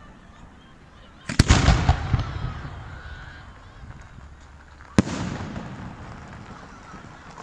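Fireworks display: a shell bursts with a loud bang about a second and a half in, followed by dense crackle that fades over about a second. A second sharp bang comes about five seconds in and dies away slowly.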